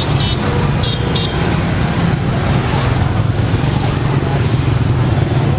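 Dense stream of motor scooters and motorbikes passing close by: a steady rumble of small engines and tyres, with a few short high-pitched beeps in the first second or so.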